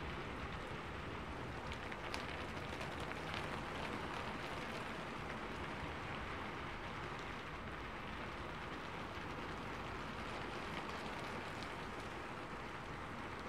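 Steady hissing background noise, even throughout, with a few faint ticks.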